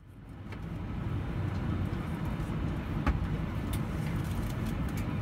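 Steady low rumble of an Airbus A319 cabin standing at the gate, fading in over the first second, with a few light knocks, the sharpest about three seconds in.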